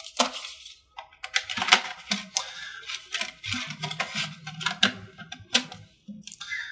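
A 3.5-inch floppy disk being handled and slid into an IBM external floppy drive: a quick run of plastic clicks and knocks as it goes into the slot, ending with a short higher-pitched sound.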